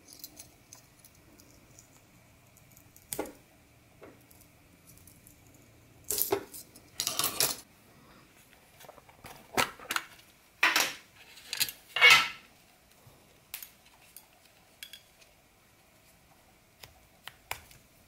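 Scattered metallic clicks, clinks and jingles of small knives being handled: a key ring on a small folding knife jingling, and a small metal tin box being opened and its contents handled. The loudest clatters come in a cluster around the middle.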